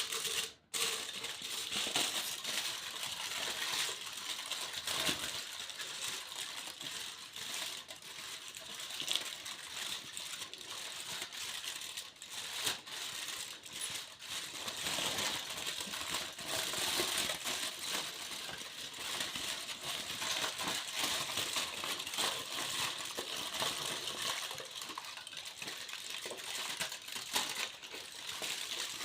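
Foil being crinkled and rustled in a continuous dense crackle of small crisp clicks.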